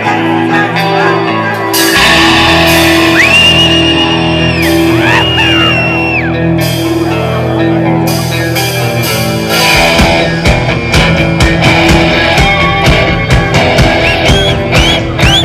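Live band playing loud rock, announced as heavy metal: held bass and guitar notes with sliding high tones, then drums come in with a fast beat about ten seconds in.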